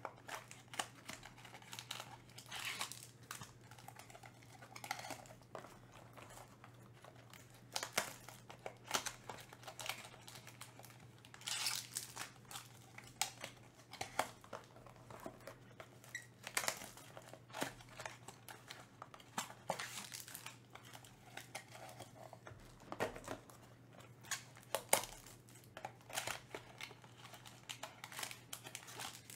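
Trading-card packs and cards being handled: irregular crinkling and rustling of pack packaging, with cards sliding and tapping against each other.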